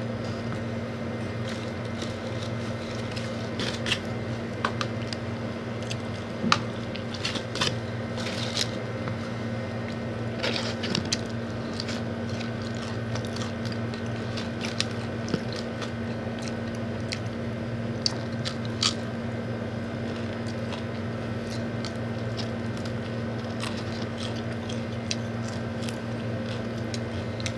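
Close-up eating sounds from two people: scattered crunchy bites and chewing of fried chicken and fries, heard as short clicks and crackles, over a steady low hum.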